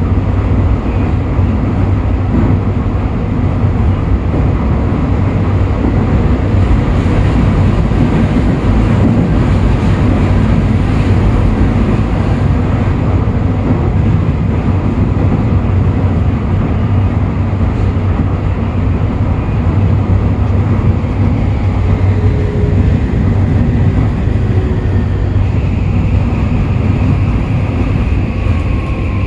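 Toei 5500 series subway train heard from inside the car, running at a steady speed: a continuous rumble of wheels on rail with a steady low hum. A faint high steady tone joins in near the end.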